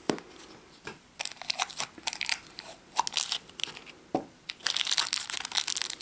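Crinkly plastic wrapper being crumpled and torn open by hand, with a few sharp clicks as the blue lid comes off a small plastic blind-pack trash can. The crinkling comes in short bouts and grows denser near the end.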